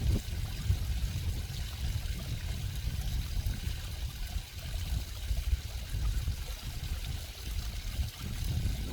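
Water flowing and trickling steadily, with a low, uneven rumble underneath.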